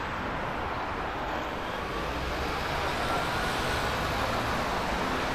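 Steady road traffic noise from a city street, growing slightly louder in the second half.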